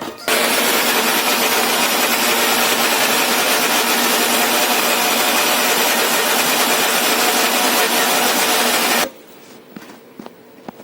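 Preethi Blue Leaf Platinum 750 W mixer grinder running with its juicer jar, pressing sweet limes into juice: a loud, steady whirring that starts just after the beginning and cuts off abruptly after about nine seconds when the motor is switched off.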